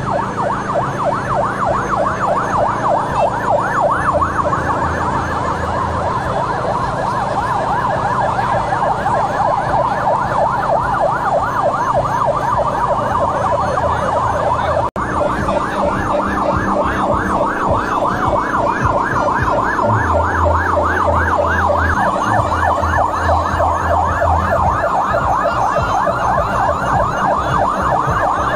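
Fire-engine electronic yelp siren, sweeping rapidly up and down several times a second without a pause. It cuts out for an instant about halfway through.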